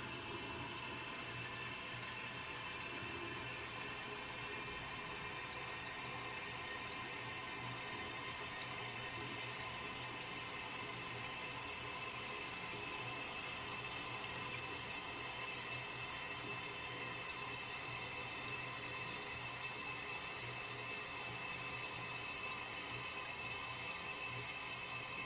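Toilet cistern refilling after a flush: a steady rush of water through the fill valve, with a thin, high, steady whistle over it.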